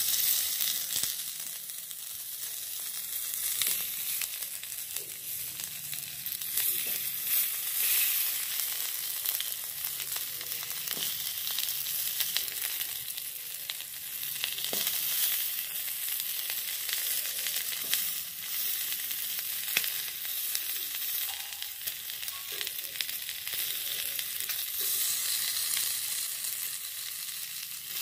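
Food frying in hot oil in a pan: a steady sizzle with scattered pops and a few sharper ticks.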